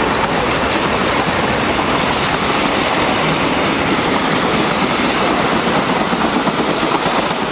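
Steel passenger coaches rolling past at close range: a steady noise of wheels on rail.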